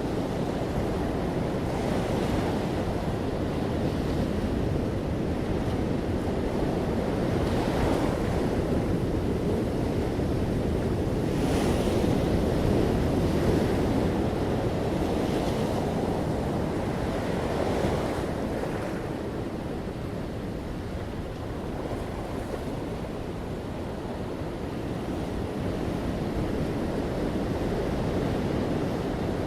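Ocean waves breaking gently on a shore in a continuous wash of surf, swelling and easing in slow surges.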